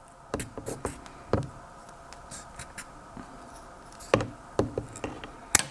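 Dull scissors snipping and crunching through a wooden chopstick: a few sharp clicks in the first second or so, then another cluster of crunching snips about four seconds in as the blades work through the wood.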